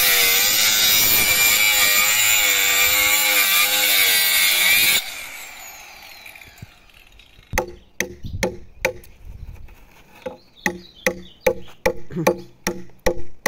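Handheld electric circular saw running as it cuts into a wooden ox-cart axle. It stops about five seconds in and winds down. After a short pause a hatchet starts chopping the axle wood in quick, irregular blows, more than a dozen of them.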